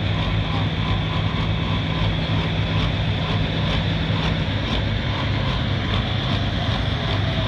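Tractor engine idling steadily, a low even hum; one of its tones drops out about four and a half seconds in.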